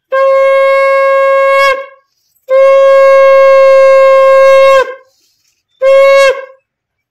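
Conch shell (shankha) blown for a Hindu puja: three loud, steady blasts on one note, the first two long and the last short, each ending with a brief drop in pitch.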